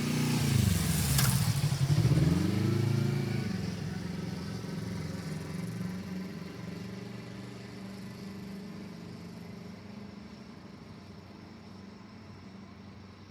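A road vehicle's engine drops in pitch as it slows, then rises again as it pulls away and fades out. There is a brief sharp clack about a second in.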